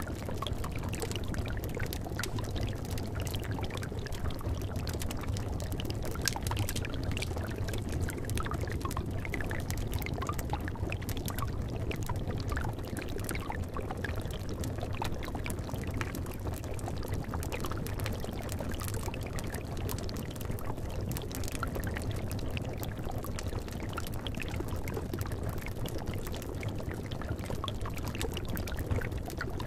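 Liquid bubbling steadily in a cauldron: a continuous low bubbling with many small pops throughout.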